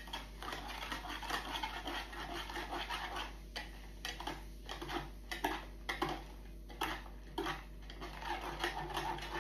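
Wire whisk stirring foaming cola and onion soup mix in a plastic measuring jug: irregular scraping and clicking of the wires against the jug's sides and bottom.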